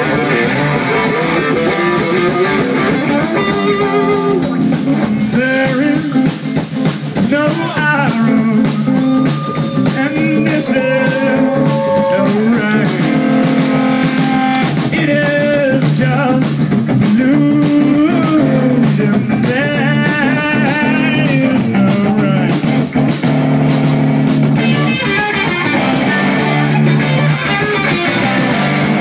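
Live rock band playing loudly: electric guitars over bass and drums, with a lead line bending up and down in pitch through the middle.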